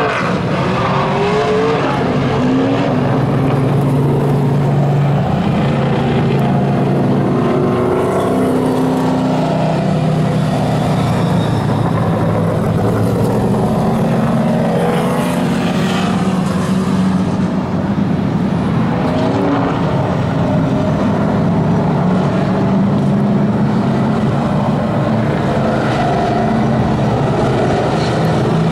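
Vintage modified stock cars racing around a short oval: several engines running hard at once, their pitch rising and falling as the cars accelerate out of the turns and pass by.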